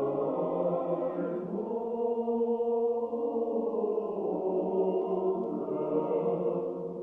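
Choir chanting slowly in long held notes, the chord shifting every second or two.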